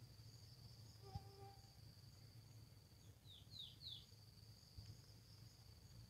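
Crickets trilling steadily at a high pitch, with a bird giving three quick descending chirps about halfway through. A faint click with a brief low note comes about a second in.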